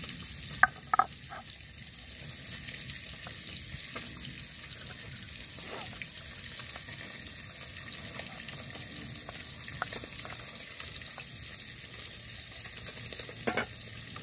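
Fish pieces frying in hot mustard oil, a steady sizzle. A few sharp, ringing clinks of a utensil against the pan come about a second in and again near the end.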